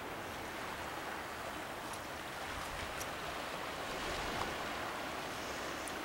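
Sea surf washing on a rocky shoreline, a steady hiss of water.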